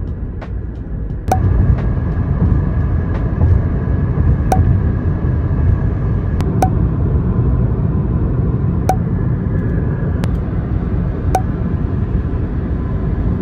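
Road and wind noise of a car cruising at highway speed, heard from inside the car: a steady low rumble that steps up a little about a second in. A short sharp click every two seconds or so.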